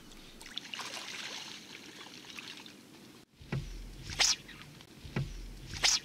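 Faint water lapping and trickling at a shallow pond edge, then a few short sharp splashes in the second half, from herabuna (Japanese crucian carp) thrashing as they spawn in the shallows.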